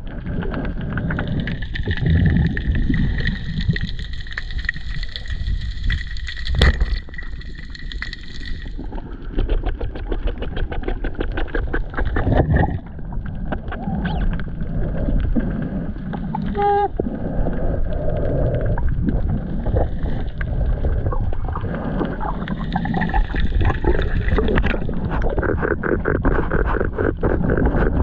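Sound picked up underwater by a submerged camera: a muffled, continuous rush and gurgle of water with many small clicks, and one sharp knock about a quarter of the way in.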